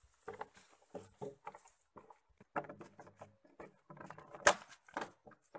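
Footsteps in sandals on a dirt path: an irregular run of scuffs and slaps, with one sharper, louder step about four and a half seconds in.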